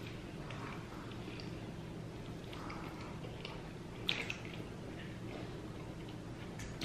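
Faint, wet chewing and mouth sounds of a person eating rotisserie chicken, with scattered small clicks and a sharper click about four seconds in and another near the end, over a low steady hum.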